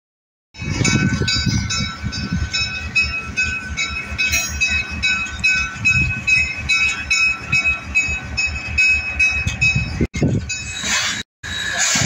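Train cars rolling past, their wheels clicking in a quick, even rhythm over rail joints, with a high squeal from the wheels on the rails coming and going. The sound cuts out twice near the end.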